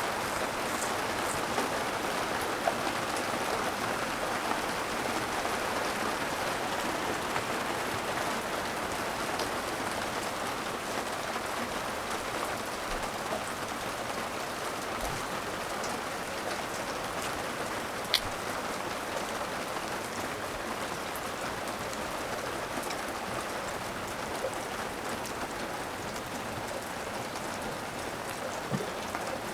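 Steady rain falling, an even hiss throughout, with a few sharp ticks, the loudest about eighteen seconds in.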